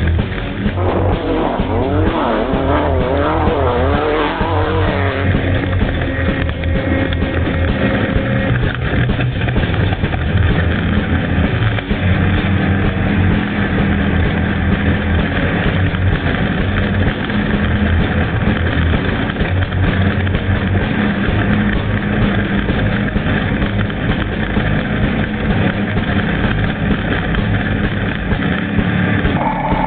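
Off-road race vehicle's engine running hard at speed, a steady loud drone mixed with road and drivetrain noise.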